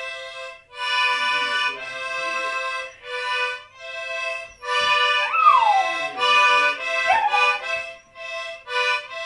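Accordion played in a series of short, separate chords, with a schnauzer howling along: one howl sliding down in pitch about five seconds in, and a shorter one rising then falling about two seconds later.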